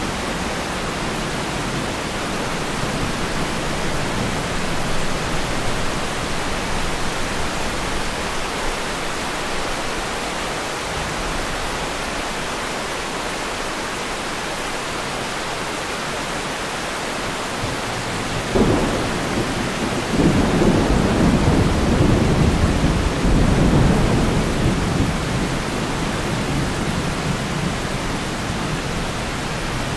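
Steady rain falling, with a thunderclap about two-thirds of the way in that rumbles on for several seconds and then fades.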